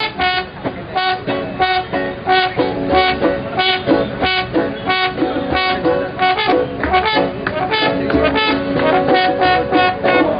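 Band playing music with a steady beat of about three strokes a second under a sustained pitched melody line.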